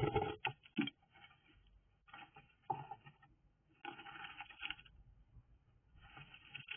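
A bird scratching and rustling in its nesting material, in several short bursts separated by pauses.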